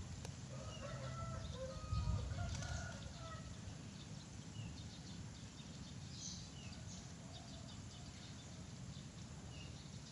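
Faint rooster crowing, a pitched call about a second in that lasts about two seconds, with a weaker call later. Short, high bird chirps come and go over a steady low rumble.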